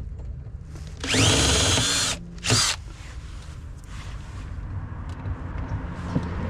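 Electric drill drilling out the rivets that hold a car door speaker to its panel: a burst of about a second whose whine rises as the motor spins up and then holds steady, followed shortly by a brief second burst.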